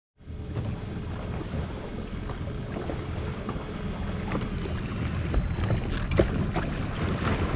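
Jet ski engine running steadily with a low hum, with wind buffeting the microphone.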